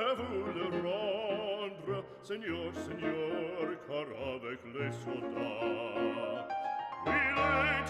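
Background music in a classical, operatic style: a melody held with wide vibrato over sustained low notes.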